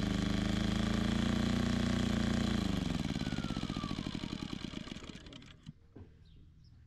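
Firman W2000i inverter generator's 80 cc engine running steadily under load, then, about two and a half seconds in, running out of fuel. It slows, its whine falls in pitch and the separate firing strokes grow slower until it dies about five and a half seconds in, with two faint clicks as it stops.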